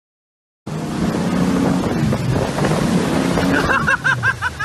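A boat's motor running under heavy wind and rushing water from the wake and spray, starting just under a second in. Near the end a run of short, repeated vocal cries rises over it.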